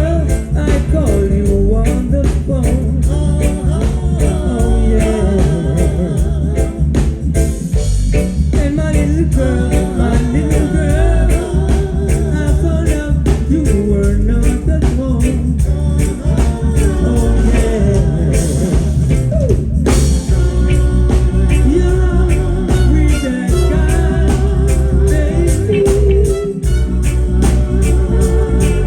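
Live reggae band playing, with a steady bass and drum groove under a melodic lead line.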